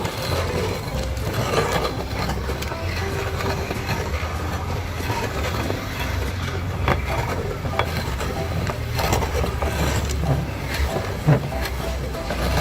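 Meat grinder's electric motor running steadily with a low hum while it grinds candy, with scattered sharp clicks and cracks over the hum.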